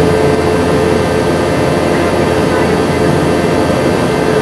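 Jet engine noise inside the cabin of a Boeing 717-200 in flight, from a seat beside its rear-mounted Rolls-Royce BR715 turbofan: a loud, steady rush with a steady hum running through it.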